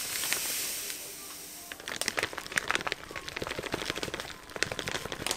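Granulated sugar poured from its plastic bag into a ceramic bowl, a steady hiss for the first couple of seconds. Then a plastic bag crinkling, with many quick crackles, as flour is shaken out of it into the bowl.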